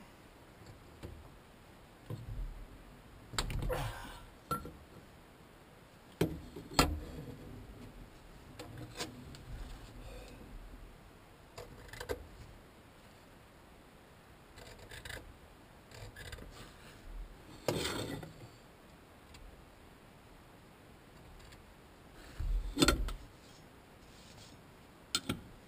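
Hand tools and metal parts handled on a tractor's steel floor plate: scattered clinks, scrapes and rubbing, with several sharper metal knocks.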